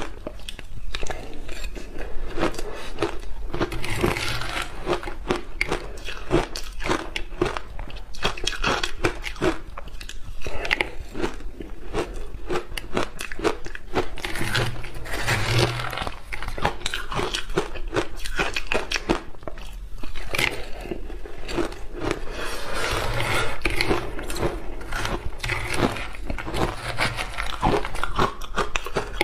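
Purple shaved ice coated in milk powder, bitten and chewed in big mouthfuls: dense, continuous crunching and crackling with no pauses.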